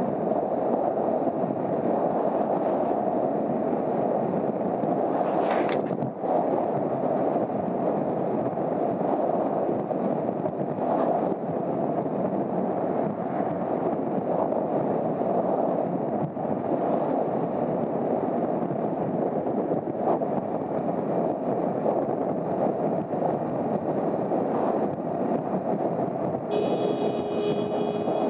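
Steady rush of wind over the microphone of a motorcycle riding at speed. Near the end a steady high tone sounds for about two seconds.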